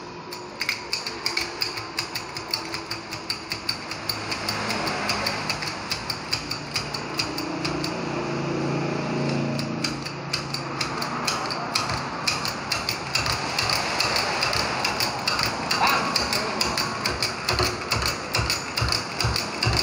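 Hydraulic bottle-jack shop press being pumped, giving a run of sharp metallic clicks at about three a second from the handle strokes as it presses a wheel bearing into a car's front steering knuckle. The clicks thin out in the middle and come back strongly near the end.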